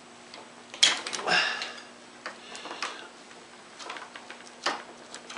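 Pliers gripping and twisting a stainless steel locking strap around a heat-wrapped exhaust pipe: irregular sharp metal clicks and short scrapes, loudest in a cluster about a second in. The strap is at about as tight as it will go.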